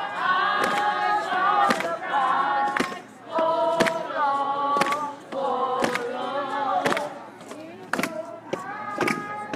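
A crowd of protesters singing together in held, drawn-out notes, with sharp beats keeping time about once a second.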